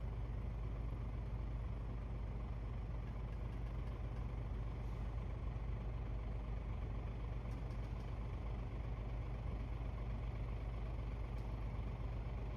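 Steady low engine rumble, deep and even, with a light hiss above it; it starts and stops suddenly.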